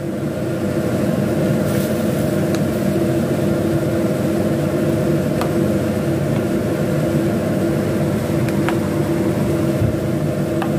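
A steady mechanical hum, with a few light clicks of a spoon against a ceramic dish as vegetable stew in coconut milk is stirred.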